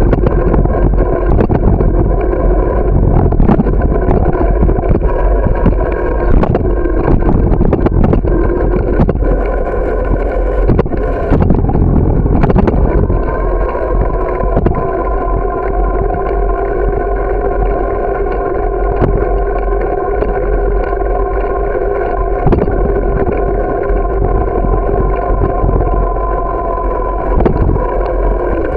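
Bicycle riding on a paved residential street, heard from a camera mounted on the bike: rolling rumble with frequent knocks and rattles from bumps in the road, over a steady whine that rises slightly in pitch about halfway through.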